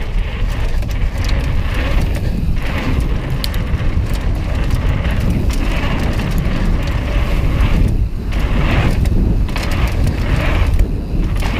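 Downhill mountain bike running fast over a dirt trail: a steady rush of wind over the microphone and tyre rumble, with frequent small knocks and rattles from the bike on the bumps.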